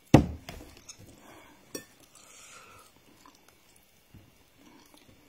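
A person eating rice and stew by hand close to the microphone: a loud, sharp thump right at the start, then small clicks and soft chewing sounds.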